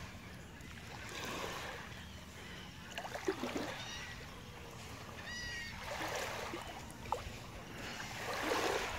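Small waves lapping onto a sandy shore, each washing in with a soft rush every two to three seconds. A short high call is heard about five seconds in.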